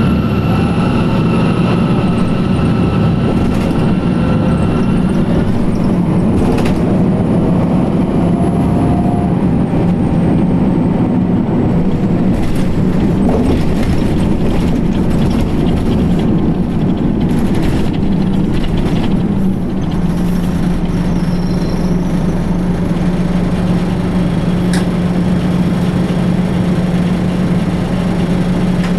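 Detroit Diesel Series 50 EGR diesel engine of a 2004 New Flyer D60HF articulated bus running steadily, a continuous low drone with scattered knocks and rattles. A thin high whine sounds over it for the first few seconds.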